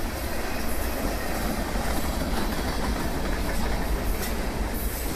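Mixed freight train of boxcars and tank cars rolling past: a steady rumble of steel wheels on the rails, with a few clicks as wheelsets cross rail joints.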